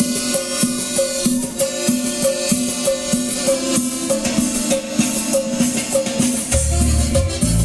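Latin dance music with percussion and a repeating rhythmic pattern. The deep bass drops out and comes back in about six and a half seconds in.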